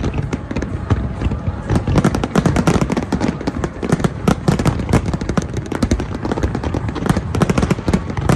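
Fireworks display, a continuous barrage of aerial shell bursts and crackle, with many sharp reports a second and no gaps between them.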